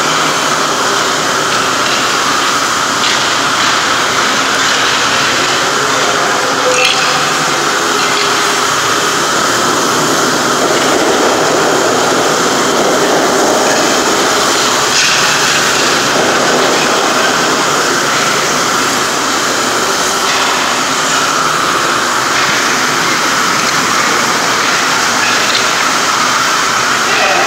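A machine running steadily, a constant loud motor drone with a few faint clicks.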